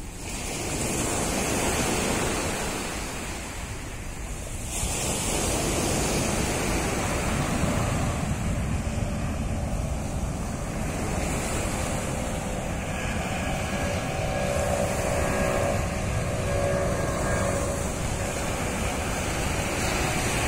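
Sea surf washing onto a sandy beach, with wind buffeting the microphone. From about halfway through, the steady whine of a low-flying airplane's engines joins in.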